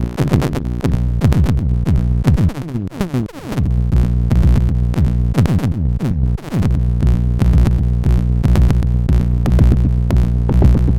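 Moog DFAM analog percussion synthesizer running a fast sequenced pattern of pitched electronic drum hits. The pitch sweeps downward twice, about two to three seconds in and again about six seconds in, with the sound briefly dropping away each time.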